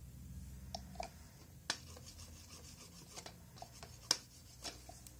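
Scattered small taps, clicks and light rubbing as nail-stamping tools, a stamper and metal stamping plates, are handled and set down on the table, with a sharper click about four seconds in.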